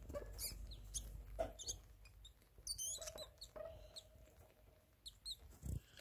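Pet rats with a litter of newborn pups squeaking: short, high-pitched squeaks scattered through, with one longer wavering squeak near the middle. A soft thump near the end.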